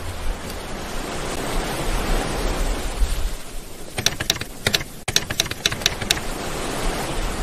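Intro sound effect: a steady rushing noise, then a quick run of about ten sharp typewriter key clicks between about four and six seconds in.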